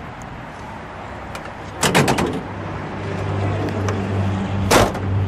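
Sharp latch clicks on a 1963 Chevrolet Corvette body: a quick cluster about two seconds in and one loud knock near the end, as the car is opened up to get at the hood. A steady low hum sets in about halfway.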